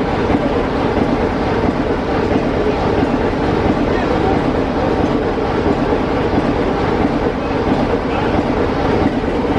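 Class 24 diesel locomotive D5081's Sulzer six-cylinder engine running steadily as the locomotive moves slowly past, heard from close above.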